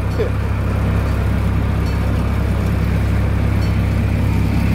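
Car engine running steadily, heard from inside the cabin as an even low hum.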